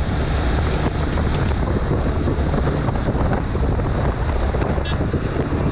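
Heavy, steady wind buffeting on the camera microphone of a moving motorcycle, with vehicle noise underneath.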